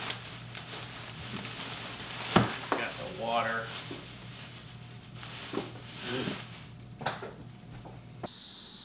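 Thin plastic grocery bags rustling and crinkling as groceries are lifted out and set on a counter, with a few knocks of items put down, the loudest about two and a half seconds in. Near the end it gives way to a steady high chorus of crickets.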